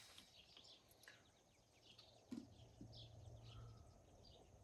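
Near silence, with faint small-bird chirps repeating in the background and a couple of soft knocks a little past two seconds in.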